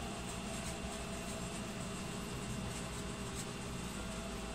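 Steady background hum and hiss with no distinct event.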